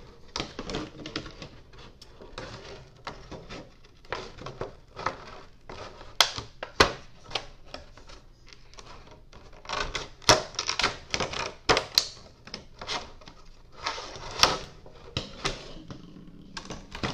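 Plastic and card packaging being cut open and handled by hand: a run of irregular sharp clicks, snips and crackles.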